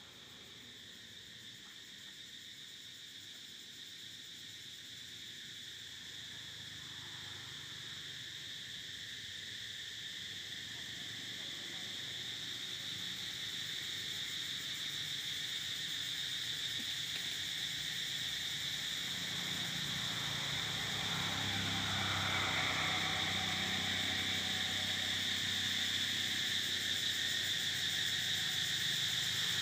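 A steady, high-pitched insect drone from the woodland, swelling gradually louder. A faint low hum joins about two-thirds of the way in.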